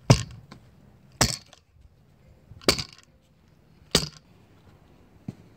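Square-plate hand tamper pounding bare soil: four heavy thuds at an even pace, then a lighter one near the end. It is compacting and levelling the dirt bed for a paver patio base.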